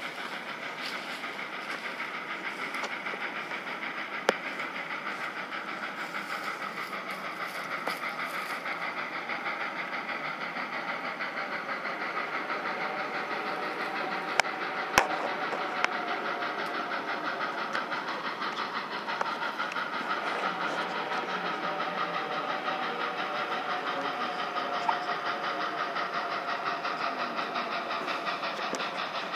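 Reading & Northern 425, a 4-6-2 steam locomotive, working its way toward the track-side listeners, a steady rapid beat of exhaust and running gear that never lets up. Three sharp clicks cut through it, one a few seconds in and two close together midway.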